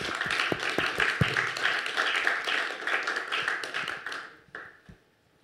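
Audience applauding, a dense patter of many hands clapping that dies away about four seconds in, with one last stray clap.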